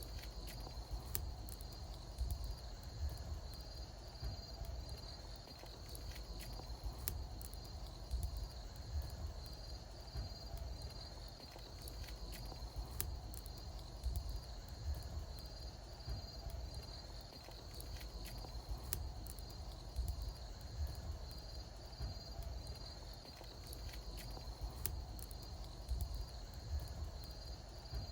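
Wood bonfire crackling, with scattered sharp pops and a low rumble, over a steady high chirping of insects.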